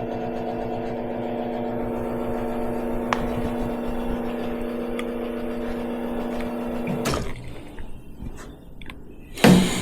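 La Marzocco Linea Mini espresso machine's pump humming steadily while pulling a shot, then cutting off abruptly about seven seconds in as the shot is stopped. A loud clunk follows near the end.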